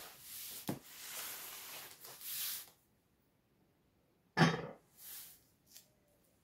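Hands rubbing and pressing on the top flaps of a cardboard box, a quiet dry rustle with a small click. After a pause comes one sharp knock about four and a half seconds in, then a few faint ticks as a roll of packing tape is handled.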